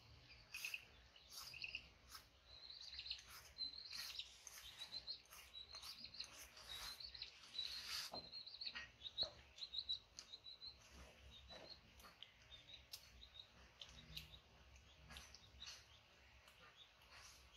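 Faint high bird chirping and twittering, busiest in the first half, over soft clicks and scrapes of a knife peeling a green mango.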